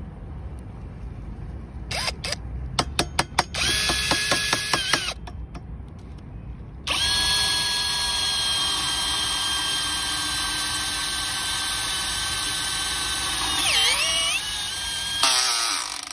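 Cordless drill driving a self-drilling screw into a metal rail: a few short trigger bursts and a brief run, then a long steady motor whine. Near the end the pitch drops and recovers as the screw bites under load.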